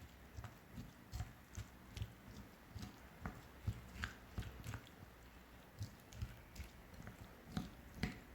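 Soft, irregular taps and clicks, two or three a second, of kitchenware being handled, with a spoon and a bowl of chopped onion and honey.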